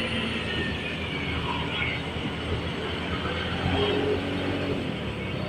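Motorcycle engine running steadily while riding, with wind and road noise.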